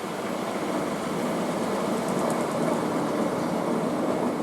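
Front-loading washing machine drum spinning with laundry inside, a steady rumble that grows slightly louder through the spin.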